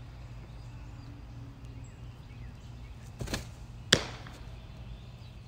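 A pitched ball smacking into a catcher's mitt with one sharp pop about four seconds in, a pitch clocked at 52 mph. A softer swish of the pitching motion comes just before it.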